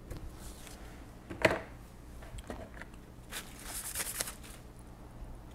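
Handling noises from a pocket computer being put back together: a sharp plastic click about a second and a half in, a few lighter ticks, then a short patch of fine rustling and ticking as the circuit board is lowered back into the case.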